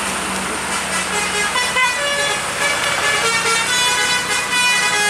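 A melodic multi-tone vehicle horn of the basuri kind plays a tune of quick, stepped notes, starting about a second in, over the steady running of a heavy truck engine climbing.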